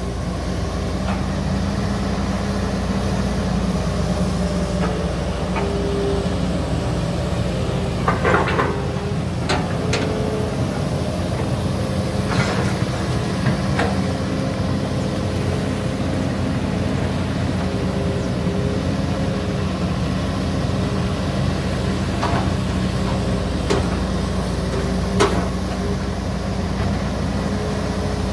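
Diesel engines of hydraulic excavators running steadily as they dig a muddy trench. About seven sharp knocks stand out, clustered about a third of the way in and again near the end.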